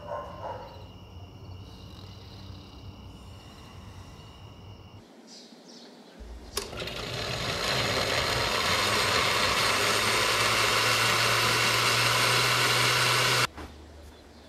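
Countertop blender with a glass jar running, blending a thick red berry mixture: its motor starts suddenly about six and a half seconds in, runs steadily at full speed, and cuts off abruptly about a second before the end.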